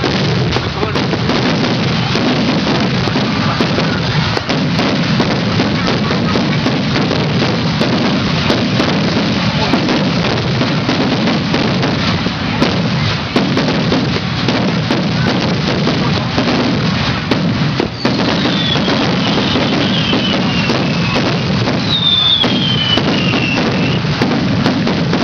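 Fireworks display: aerial shells bursting with a dense, continuous crackling and popping. Falling whistles are heard twice in the second half.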